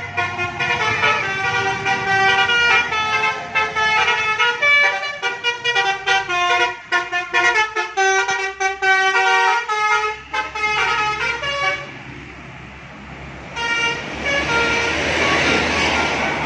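Bus 'telolet' musical air horn playing a rapid multi-note melody. It drops away about twelve seconds in, then sounds again with a hiss underneath near the end.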